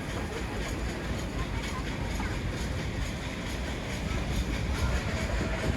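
Nilgiri Mountain Railway toy train running along the track: a steady rumble with a quick, regular clatter.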